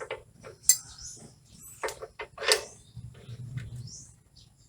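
Irregular metallic clicks and clinks of a welding ground cable and clamp being handled and connected to the welding machine's negative terminal. The sharpest knocks come about two-thirds of a second and two and a half seconds in.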